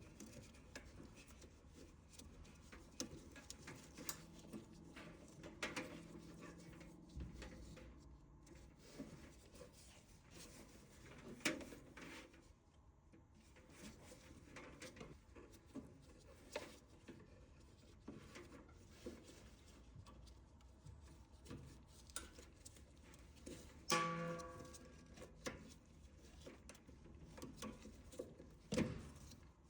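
Faint, scattered clicks and knocks of dryer parts being handled during reassembly after a belt replacement, with a short pitched squeak about 24 seconds in and a louder knock near the end.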